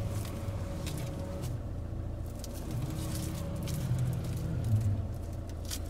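Mercedes-Benz B-Class W246 engine idling with reverse gear engaged: a steady low hum, heard from inside the cabin.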